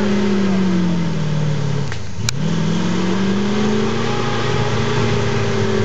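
Chevy 350 small-block V8 of an off-road 4x4 working up a muddy trail: the revs sag about two seconds in, a sharp click sounds, then the revs climb again and hold.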